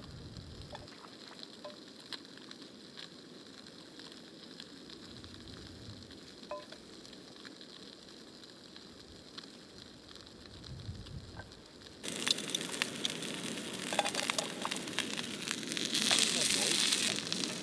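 Food frying in olive oil in a pan: a faint sizzle with scattered small pops. About twelve seconds in it turns suddenly much louder and denser.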